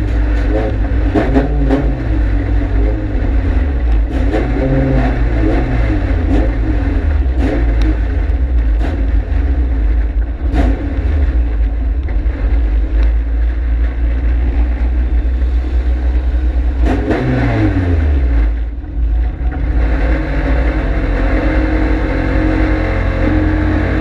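In-cockpit sound of a Honda Civic EG hatchback dirt-track race car, its four-cylinder engine revving up and falling back every couple of seconds as it drives the corners, with scattered clicks and rattles. The engine briefly drops off about three quarters of the way through, then picks up again more steadily.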